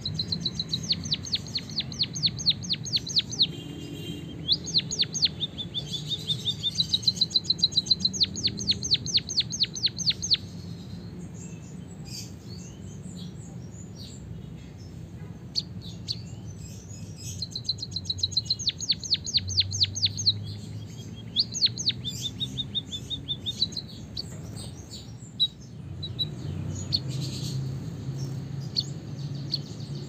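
White-headed munia singing a canary-like song it has picked up: long, rapid trills of sharp notes in two bouts, one in the first ten seconds and another from about two-thirds of the way in. A steady low hum runs underneath.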